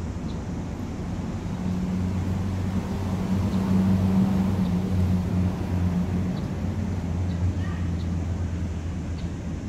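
A low, steady engine hum that swells from about a second and a half in, is loudest around four seconds, and fades away after about eight seconds, over a general outdoor background noise.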